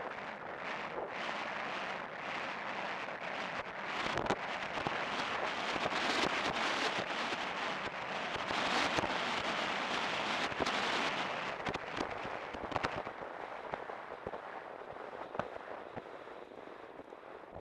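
Wind rushing over a helmet-mounted camera's microphone as a horse gallops across turf, with irregular knocks of hoofbeats. The rush builds through the middle and eases near the end.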